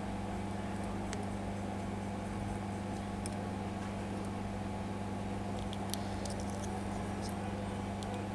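Steady low electrical hum, with a few faint clicks as small phone parts are handled.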